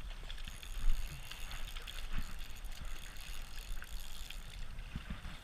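Wind rumbling on the microphone over the rush and lapping of river water, with one louder gust about a second in.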